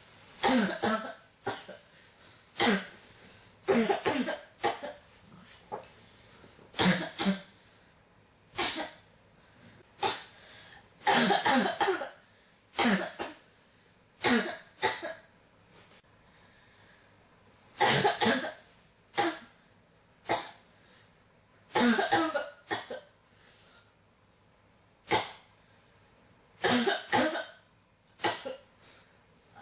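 A person coughing over and over in a fit: sharp single coughs and quick runs of two or three, a second or two apart, with a couple of brief pauses.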